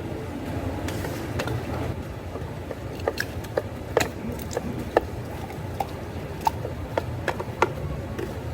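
Cafe counter work: a run of short clinks and taps of hard objects such as cups, ice and utensils, each briefly ringing, over a steady low hum.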